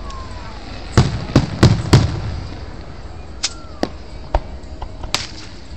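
Aerial firework shells bursting in the sky: four loud bangs in quick succession about a second in, then a handful of fainter, sharper cracks spaced out through the rest.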